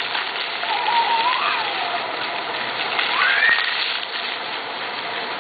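Water fountain splashing, a steady hiss of falling water, with two short high calls gliding up and down in pitch over it, about one and three seconds in.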